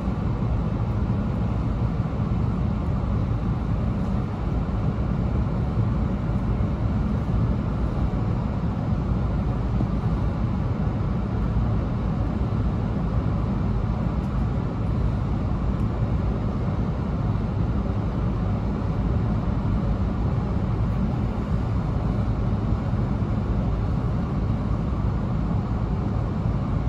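Steady low rumble of running noise inside the cabin of an E2 series Shinkansen as it runs alongside a station platform.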